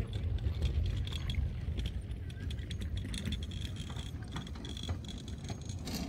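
Wind buffeting the microphone as a steady low rumble, with scattered light clicks.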